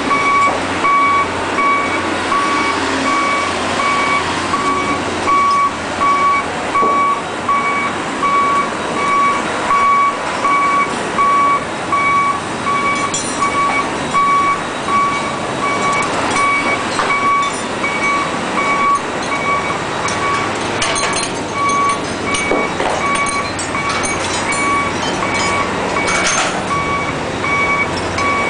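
A construction vehicle's reversing alarm beeping over and over, over the steady noise of running machinery. A few sharp clanks and knocks come in the second half.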